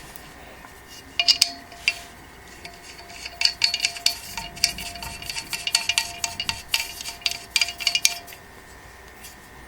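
Light metallic clinks and rattles of a steel printer-stand leg being handled while a rubber foot is screwed onto its bottom end. The quick, irregular taps start about a second in and stop shortly before the end.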